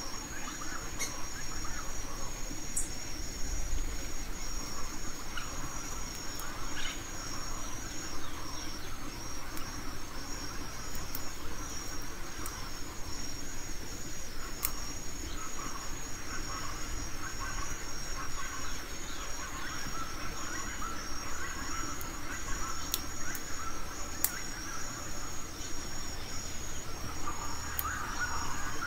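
Insects chirping in the undergrowth: a steady, rapid high-pitched pulsing, with a few faint sharp clicks over it.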